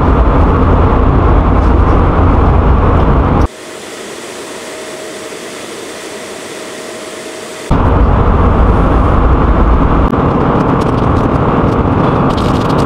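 Airliner cabin noise in flight: a loud, steady deep rumble with a hiss. About three and a half seconds in it cuts abruptly to a much quieter hiss with a faint steady hum, and it comes back just as suddenly some four seconds later. Near the end there is a light crinkle of a paper sugar sachet being handled.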